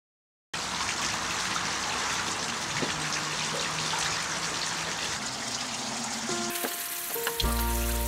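A steady hiss, like rain or frying, comes in suddenly half a second in. Background music with a deep bass line takes over near the end.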